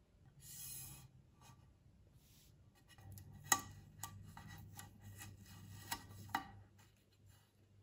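Hands rustling and rubbing on a turntable's aluminium platter, with a few sharp small clicks, as the red ribbon is pulled to hook the drive belt over the motor pulley. A brief rustle about a second in; the clicks come mostly in the second half, the loudest about halfway through.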